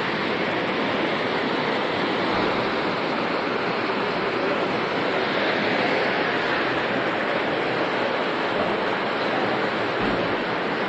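Floodwater from a breached lake embankment rushing through a street in a fast torrent: a steady, loud rush of water.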